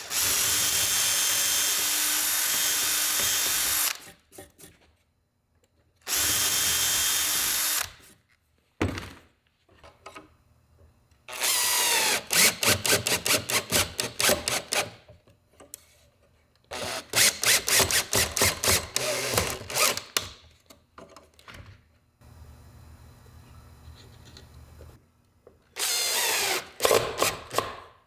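Power drill running in spurts: two steady runs of a few seconds at the start, then strings of quick trigger pulses, and another run near the end, as it drills and drives small screws into wood to mount a hinge.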